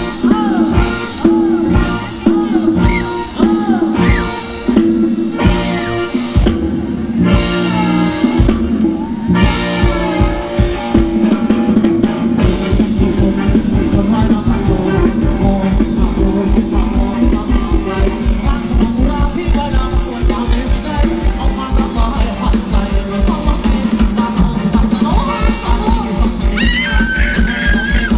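Live band playing Thai ramwong dance music, a singer's voice over drums and guitar. About twelve seconds in, the beat turns faster and denser and keeps going.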